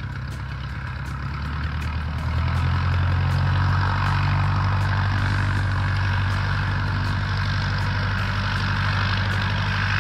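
Vintage biplane's piston engine running steadily at taxiing power, getting louder about two seconds in as the aircraft turns and comes closer.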